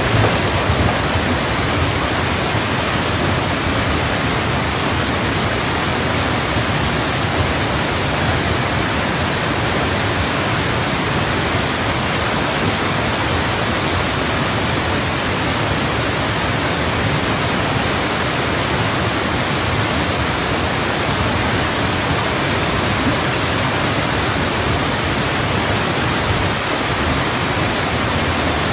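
Flash-flood water rushing in a steady, loud torrent.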